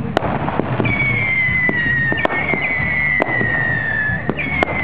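Aerial fireworks going off in a string of sharp bangs and crackles, over a high whistling tone that slides slowly downward and starts again a few times.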